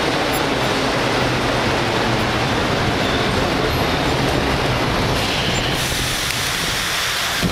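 Vintage New York City subway train running, heard from inside the car: a steady, loud rumble of wheels on rail and running gear, easing slightly near the end.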